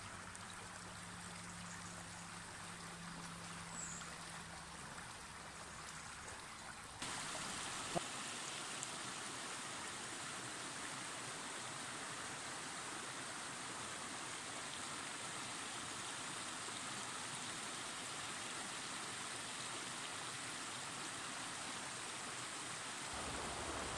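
Mountain stream running over rocks and small cascades: a steady rush of water, becoming louder about seven seconds in.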